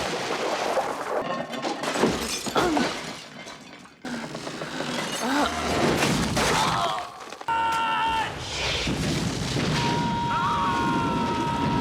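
Slapstick film sound effects: crashes and shattering, mixed with voices.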